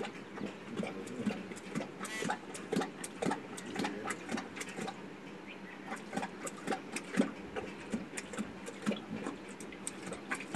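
Lion lapping water from a stone tank: a steady run of short, quick laps, about two to three a second.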